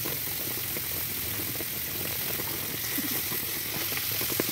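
A frying pan of sliced onions bubbling and sizzling on a portable gas stove, a steady hiss, with a few light knocks of a fork stirring in the pan near the end.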